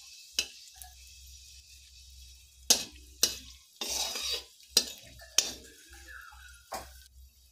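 Metal spatula stirring whole spices frying in oil in a kadai, scraping and knocking against the pan with sharp strokes every second or so over a light sizzle of the oil.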